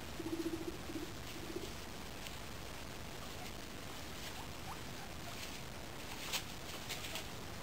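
Guinea pig giving a low, pulsing purr in three short bursts over the first two seconds, followed by scattered faint rustles and clicks from the animals moving in the wood-shaving bedding, the sharpest click a little after six seconds.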